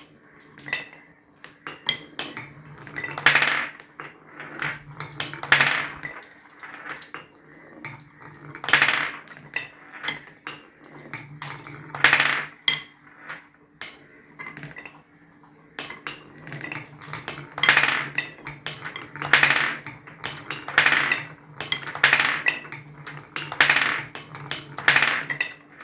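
Glass marbles rolling along a wooden marble-run track: rolling rumbles that swell and fade every couple of seconds, with many sharp clicks and knocks as the marbles hit joints, corners and each other.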